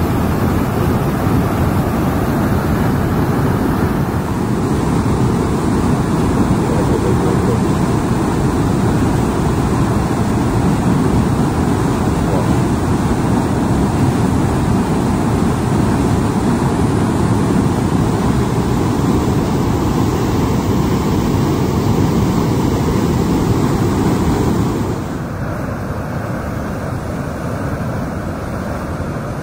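Loud, steady roar of a large volume of canal water cascading and churning as white water down a concrete channel. It drops a little in level near the end.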